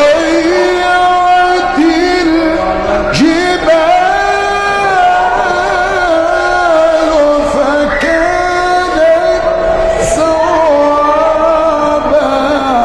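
Melodic Quran recitation by a single voice, holding long drawn-out notes and ornamenting them with wavering turns and slides between pitches.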